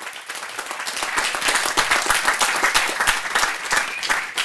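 Audience applauding, swelling over the first second.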